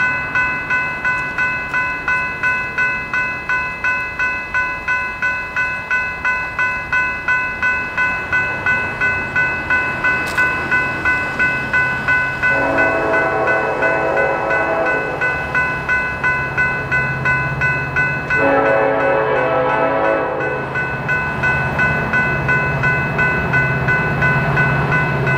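Grade-crossing warning bell ringing in a steady rhythm while the approaching train's lead locomotive, Norfolk Southern SD70ACe 1072, sounds its horn in two long blasts, about halfway through and again a few seconds later. The locomotive's diesel rumble grows louder near the end.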